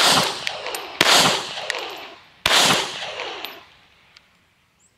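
Three pistol shots, one right at the start, then about a second later and about a second and a half after that, each followed by a fading echo.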